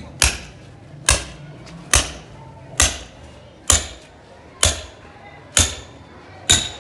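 Hammer striking a steel chisel to cut a groove in a cement floor for a buried water pipe. Eight sharp, evenly paced blows, about one every second, each with a brief metallic ring.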